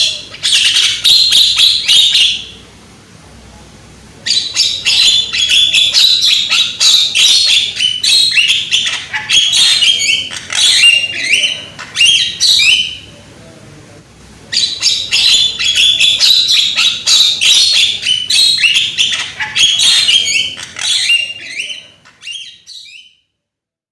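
Young Javan myna (jalak kebo) calling loudly in rapid, harsh chattering bouts: three long bursts of quick squawks and clicks with short pauses between them, dying away shortly before the end. It is a lure recording meant to set other mynas calling.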